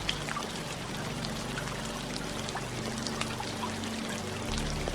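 Steady rainfall, an even hiss with scattered louder individual drops. Under it, a soft music bed of low held notes shifts to a new chord near the end.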